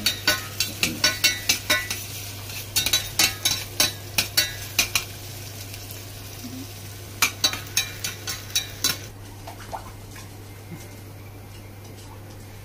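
A spoon stirring garlic and onion sautéing in a stainless steel saucepan, clinking and scraping against the pan several times a second over a faint sizzle. The stirring pauses for about two seconds midway, resumes briefly and dies away after about nine seconds, leaving a steady low hum.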